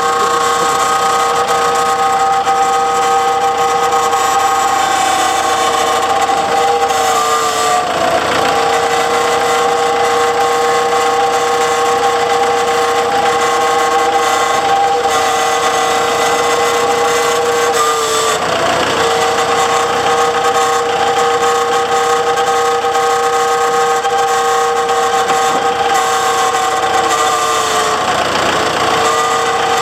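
Tractor giving off a loud, steady whine with several pitches at once, an abnormal noise that the owner suspects comes from around the hydraulic pump. The pitch dips briefly three times and recovers.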